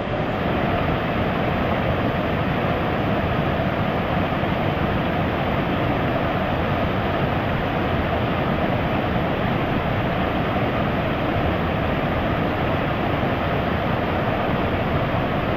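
Off-road vehicle on the move: a steady, dense rumble and rush of engine, tyre and wind noise that holds without rising or falling in pitch.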